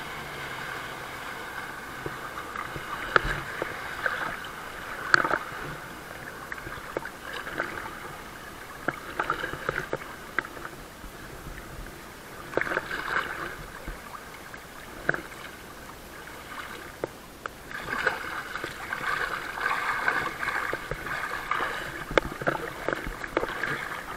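Lake water lapping and splashing around a wakeboard and a camera riding low at the surface, with a jet ski's engine running nearby, louder in two stretches, near the middle and toward the end.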